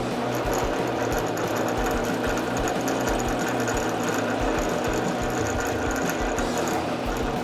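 Small electric power tool running steadily at one speed, typical of woodworking sanding or drilling, over background music.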